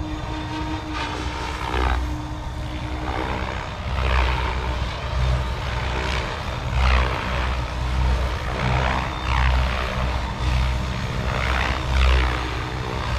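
SAB Kraken 580 electric RC helicopter in flight at a higher head speed: the rotor and motor whine and whoosh swell and fade about every second or two, the pitch rising and falling as it manoeuvres.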